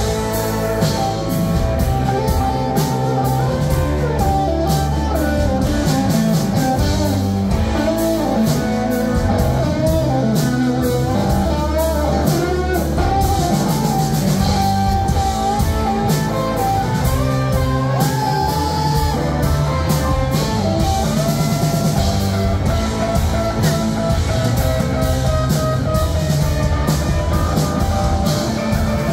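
Live rock band playing an instrumental passage: an electric guitar lead with bent, gliding notes over drum kit, bass guitar and keyboard, steady and loud.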